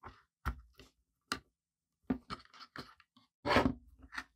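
Wires and their connectors rustling, clicking and scraping against a 3D-printed plastic housing as they are fed through and joined by hand. There is a series of short clicks, then a longer, louder scrape about three and a half seconds in.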